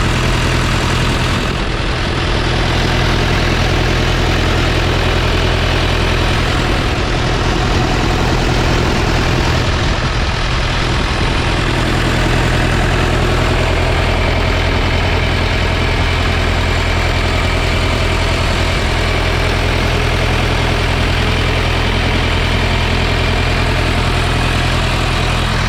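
Diesel engine of a New Holland B90B backhoe loader idling steadily.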